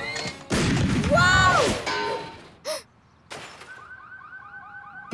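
Cartoon sound effects for a robotic kicking machine going off wrong. A loud whooshing clatter about half a second in carries a shouted "Whoa!", then comes a short falling whistle and a thud. Near the end a rapid warbling tone repeats about seven times a second.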